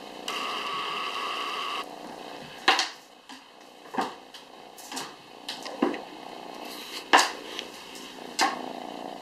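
Kittens jumping at a dangling toy mouse, their paws and landings knocking sharply on a hardwood floor and a wooden door, about six knocks spread a second or so apart. Near the start, a steady tone lasts about a second and a half.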